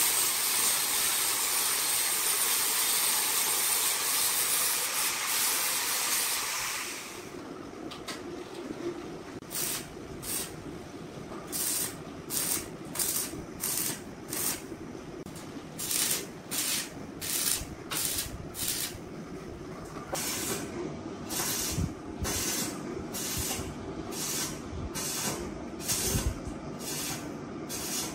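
Angle grinder grinding steel square tubing: a loud steady hiss with a high whine, stopping about seven seconds in. Then a stick (arc) welder welding the steel tube frame in short repeated bursts of crackle, roughly one to two a second, over a low hum.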